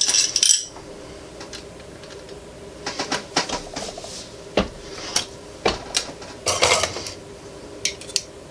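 MEC Marksman single-stage reloading press being cycled to seat a bullet: irregular metallic clicks and knocks from the handle, ram and linkage, with one heavier knock a little past halfway.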